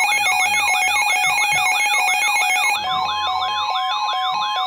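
Electronic emergency alert tones from a weather-alert broadcast: a siren-like rising sweep repeats about four times a second over a fast two-tone warble. About three seconds in, a steady single alarm tone near 1 kHz joins, announcing a warning.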